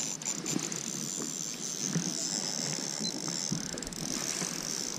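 Spinning reel being wound against a hooked fish, a faint run of small ticks from its gears and line, over a steady hiss.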